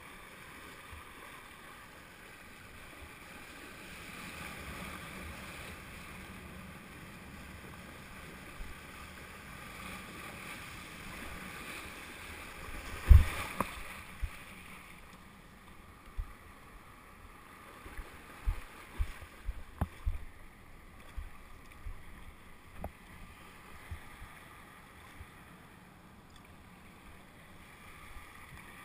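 Water rushing and splashing around a kiteboard riding over choppy shallows, with some wind. A loud knock comes about thirteen seconds in, and a run of sharp knocks follows a few seconds later.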